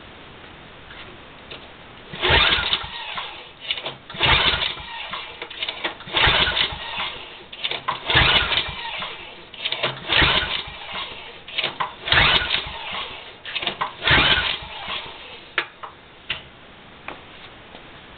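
Recoil starter of a Tecumseh 8 hp Snow King engine pulled seven times, about every two seconds. Each pull spins the engine over without it firing: it is being cranked with the spark plug out and a compression gauge fitted, for a compression test.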